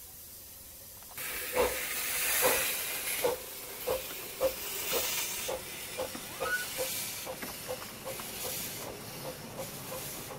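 Ridable miniature-railway steam locomotive starting away: about a second in a loud steam hiss bursts out, then its exhaust chuffs, quickening from about one a second to about three a second as the train gathers speed.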